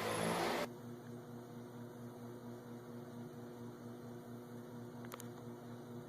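Steady low electrical hum with its overtones, after a noisier stretch that cuts off suddenly under a second in; a faint click near the end.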